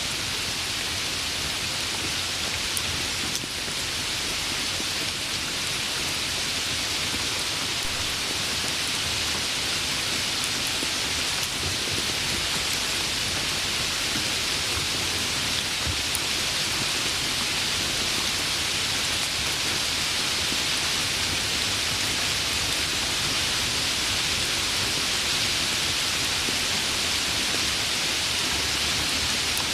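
Steady rain falling on a surface, an even hiss with no letup.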